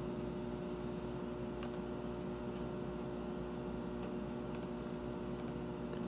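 A few faint computer mouse clicks, single and double, over a steady electrical hum.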